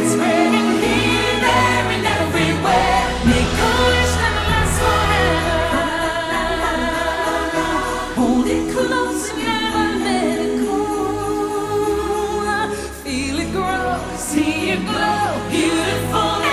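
Christmas show music: a choir singing over instrumental backing, with jingle bells.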